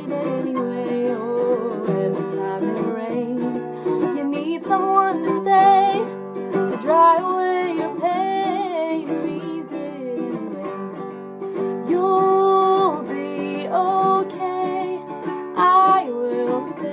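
Acoustic song: a plucked string instrument, ukulele-like, plays chords under a solo voice singing a wavering, held melody.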